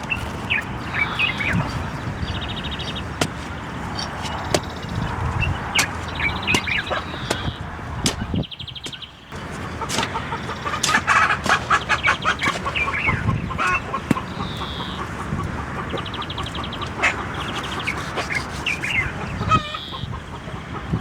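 Chickens clucking and calling, with short chirps throughout and scattered sharp clicks.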